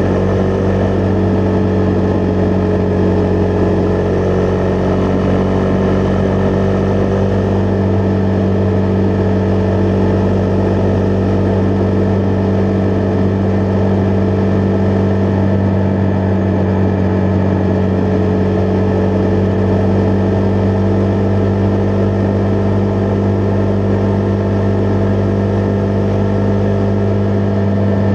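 Husqvarna Vitpilen 401's single-cylinder engine running at a steady pitch, holding an even speed on the road.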